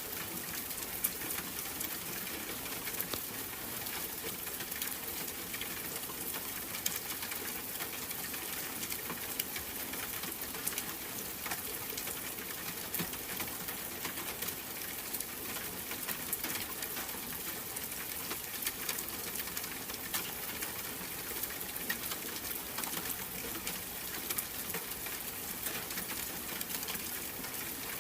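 Steady rain with a dense patter of small drops.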